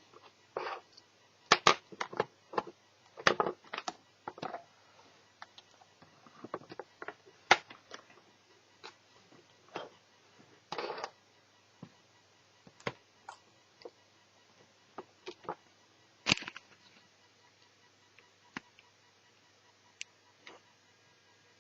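Irregular clicks, taps and short scrapes of small plastic and metal parts being handled while working inside a netbook, busy at first and growing sparse near the end.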